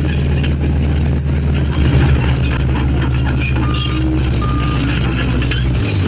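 Mitsubishi Fuso dump truck's diesel engine running steadily while its bed is raised to tip the load, with a brief rise about two seconds in.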